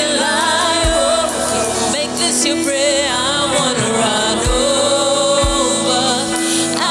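Gospel music: wavering sung melody over steady held chords, with a few low thuds about a second in and again between four and six seconds in.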